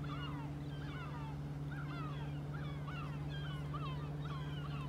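A flock of birds calling, many short rising and falling calls overlapping several times a second, over a steady low hum.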